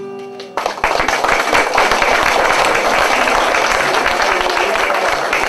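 The last acoustic guitar chord of a song rings out briefly, then audience applause breaks out suddenly about half a second in and continues, loud and dense.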